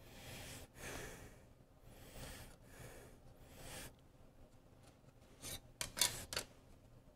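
Faint rubbing and sliding as hands shift a stack of aluminum sheet blanks in a milling-machine vise, in four short swishes, then a quick run of sharp light metallic clicks near the end.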